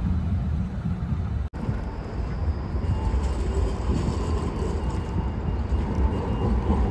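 Tram running along street track: a steady low rumble with a faint high whine. There is a momentary break in the sound about a second and a half in.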